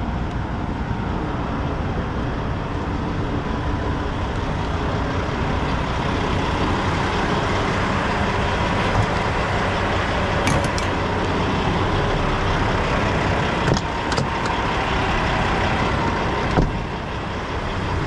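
Semi truck's diesel engine idling steadily, with a few sharp knocks over the top in the second half.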